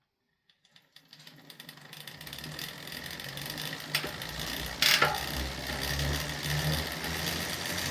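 DT Swiss Star Ratchet rear bicycle hub with a 36-tooth ratchet freewheeling: its two toothed ratchet discs give a rapid, fast-ticking buzz that fades in and grows louder over the first couple of seconds. Two louder knocks come about four and five seconds in.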